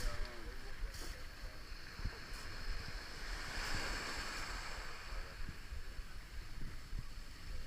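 Wind buffeting the microphone with a gusty low rumble, and a rushing swell of noise that rises and fades around the middle.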